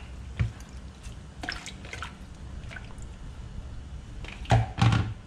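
Water dripping and trickling in a frying pan of shredded potatoes being readied for blanching, over a low steady hum. A few sharp knocks stand out, one about half a second in and the two loudest near the end.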